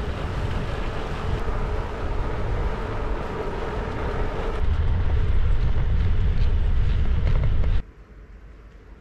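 Rolling noise of an NS Bikes RAG+ 2 gravel bike's tyres on a tarmac road, with wind rumble on a microphone mounted on the moving bike; the rumble gets louder about halfway through. Just before the end it cuts off abruptly to a much quieter outdoor background.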